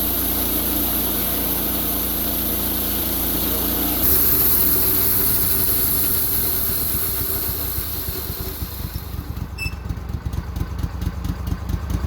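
Wood-Mizer LT15 Go portable band sawmill running, engine and band blade going steadily as it cuts pine. About four seconds in it grows louder. In the last couple of seconds the high hiss drops away, leaving an uneven pulsing engine beat.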